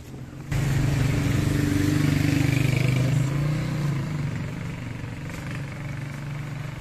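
Motorcycle engine running steadily, starting abruptly about half a second in and easing off somewhat after about three seconds as it rides away.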